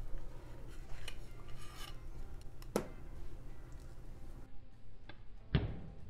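Metal pie server and fork scraping and clinking against a plate as a slice of strawberry cheese pie is lifted and pushed onto it. There are a few light clinks and two sharper ones about three seconds apart; the last, near the end, is the loudest.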